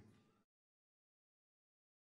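Dead silence: the sound track drops out completely once a faint fading tail dies away in the first half second.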